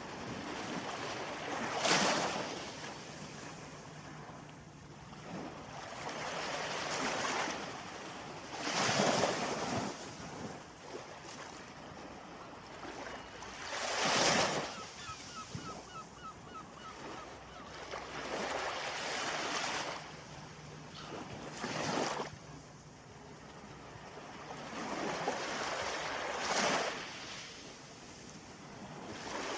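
Ocean surf: waves breaking one after another, each rising to a loud rush and then washing out. The biggest breaks come about every five to eight seconds.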